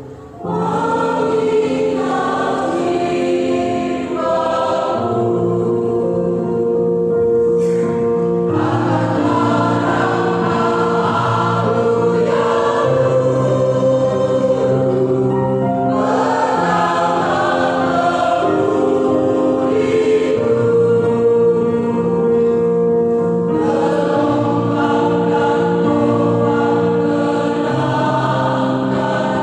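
Church choir singing a gospel song in several voice parts, with long held notes.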